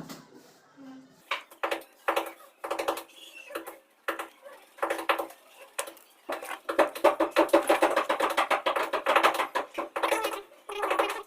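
Background music: a fast rhythmic track of short repeated pitched notes, sparse at first and fuller and louder from about halfway through.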